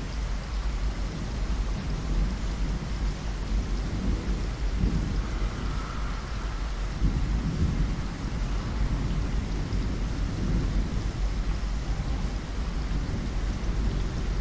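Steady rain with low rumbles of thunder that swell and fade through the middle.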